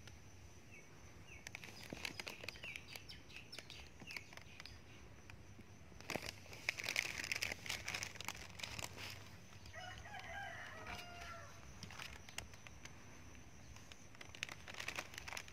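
Puppy and older dog play-wrestling on a wooden deck: scattered scuffles, taps and rustles, busiest about seven seconds in. A brief run of high chirping calls comes about ten seconds in.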